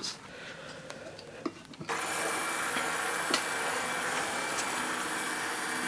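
A 1976 Federal Signal Twin Sonic light bar switched on about two seconds in: its rotator motors start and run with a steady whir, with a few faint clicks.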